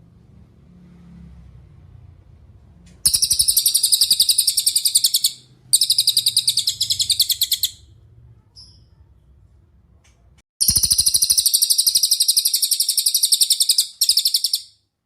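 Cililin songbird singing: four rapid, high-pitched trills, each lasting one to three seconds, with short pauses between.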